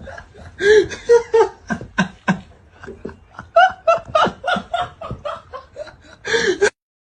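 People laughing hard in short, loud bursts, a few each second, cutting off abruptly near the end.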